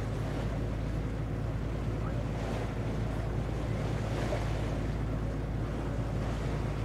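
A boat's engine running with a steady low hum, under the wash of water and wind noise on the microphone.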